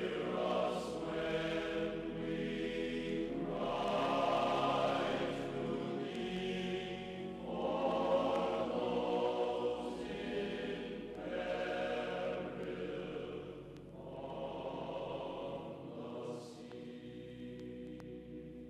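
Slow background music of long, sustained chords that swell and fade in phrases every few seconds.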